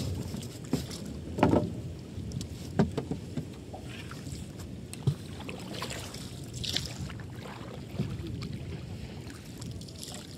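Wooden canoe moving through the water, with a steady low rush of water along the hull and wind on the microphone. A few sharp knocks stand out, about 1.5 s, 3 s, 5 s and 8 s in.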